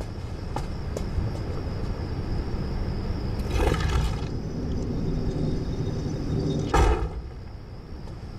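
A steady low rumble that slowly swells, with two short pitched bursts about three and a half and seven seconds in.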